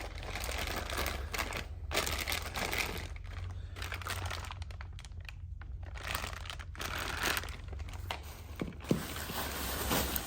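Packaging crinkling and rustling in irregular bursts as parts are unwrapped by hand.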